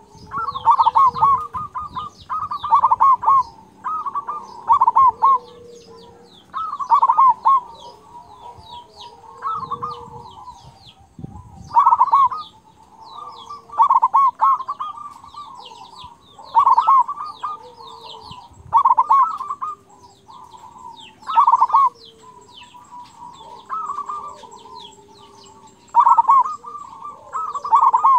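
Local zebra dove (perkutut) singing its cooing song. Loud phrases of rapid, stuttering coos repeat about every two seconds. Small birds chirp faintly in the background.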